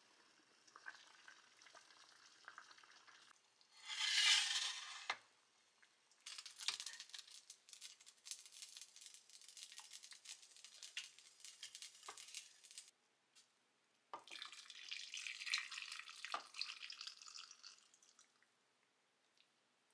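Cooking sounds around a pot of boiled chicken broth: a short hiss about four seconds in, then several seconds of crackling and dripping as a whole boiled chicken is lifted out of the broth, then a few seconds of broth being poured over the chicken in an earthenware bowl.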